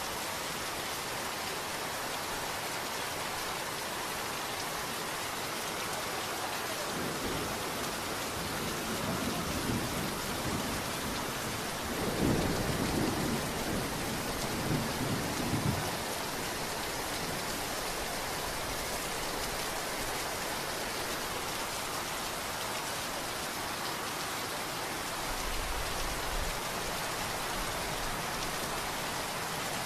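Steady pouring rain with thunder rolling in about seven seconds in, loudest in a long rumble a few seconds later, then fading. A fainter low rumble of thunder follows near the end.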